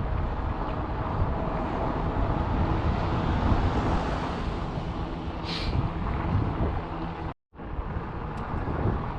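Wind buffeting the microphone, with a steady road rumble, while riding an e-bike. The sound cuts out for a moment about seven seconds in.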